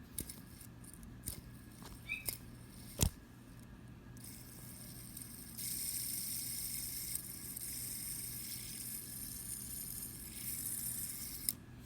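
Plastic fidget spinner handled with a few clicks and a sharp click about three seconds in, then spun: from about four seconds a steady high whir from its bearing, which stops with a click near the end.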